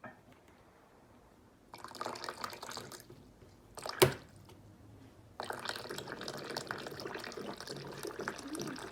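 Water running and splashing, in a short burst and then steadily from a little past halfway, with one sharp click about four seconds in.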